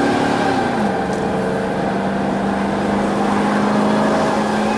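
Van engine and road noise heard from inside the moving vehicle. The engine's pitch drops about a second in, then holds steady.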